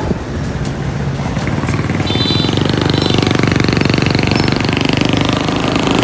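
Small motorcycle engine running as the bike is ridden, with a fast even putter that gets louder and stronger from about two seconds in as it pulls away. A short high tone sounds briefly about two seconds in.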